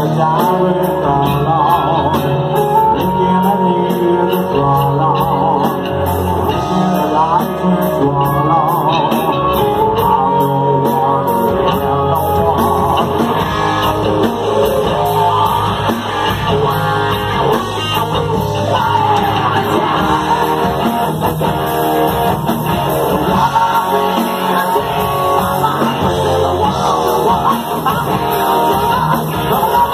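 Live rock band playing: electric guitars, bass guitar and drum kit with cymbals ticking steadily, and a male singer's voice over the top at times.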